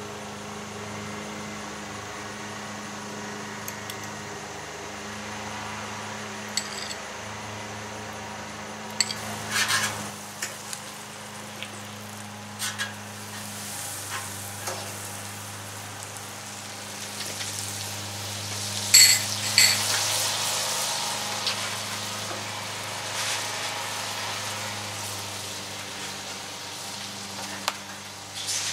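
Pancakes sizzling on a Blackstone flat-top griddle as butter melts on their tops, over a steady low hum. A few sharp clicks of a utensil on the griddle cut through, the loudest two a little past halfway.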